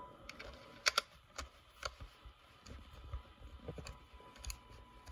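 A few light, irregular metallic clicks and taps as a BNC T-adapter carrying two dummy loads is pushed and twisted onto the noise bridge's connector.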